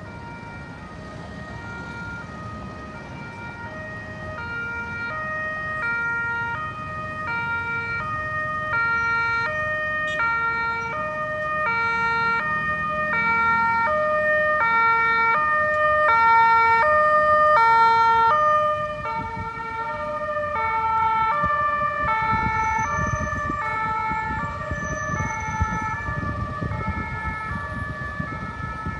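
Ambulance siren sounding a two-tone hi-lo pattern, growing louder to a peak past the middle and then fading as it passes. Low road rumble runs beneath it.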